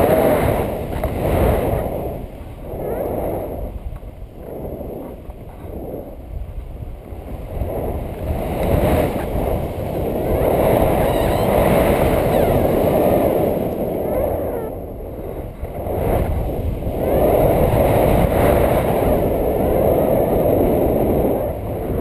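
Wind rushing over and buffeting the microphone of an action camera held out on a pole in the airflow of a paraglider in flight, a rough low rumble that swells and fades in gusts every few seconds.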